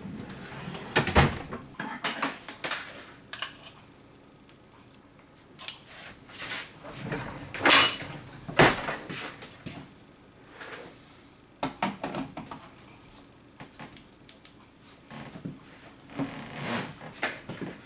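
Irregular knocks, clicks and clatter of hard objects being handled and set down, with the loudest knocks about one, eight and nine seconds in.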